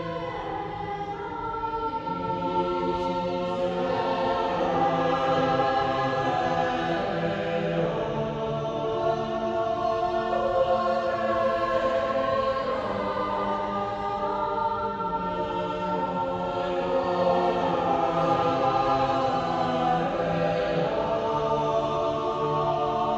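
Unaccompanied choir of boys and men singing a four-voice Renaissance polyphonic motet, with several overlapping vocal lines holding long notes in a church acoustic.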